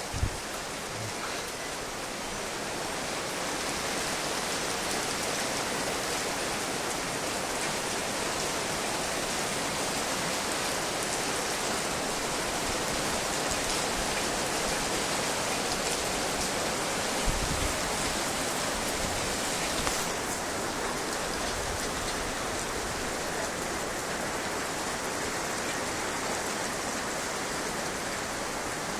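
Heavy rain pouring down in a steady, dense hiss, with a brief low knock or two partway through.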